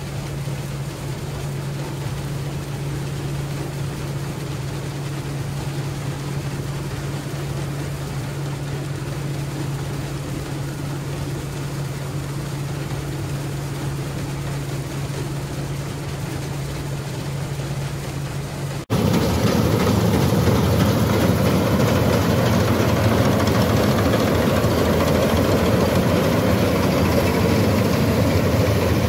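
Self-propelled combine harvester engine running at a steady drone while the machine cuts grain. About two-thirds of the way through, the sound cuts abruptly to a louder, noisier Massey Ferguson combine harvester running.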